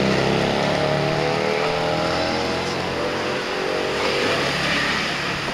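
Tuk-tuk's small engine running close by as it drives off, its pitch rising a little, then fading away about four seconds in.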